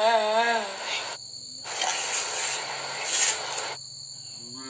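A woman's sung note with vibrato trails off about a second in. Then comes a hiss with steady high-pitched thin tones that drops out twice. A new low sung note begins near the end.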